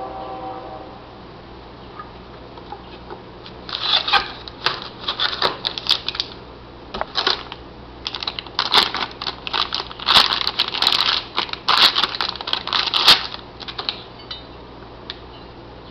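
Clear plastic bag crinkling and crackling as it is pulled off a metal mounting bracket. The crinkling comes in irregular bursts from about four seconds in until a couple of seconds before the end.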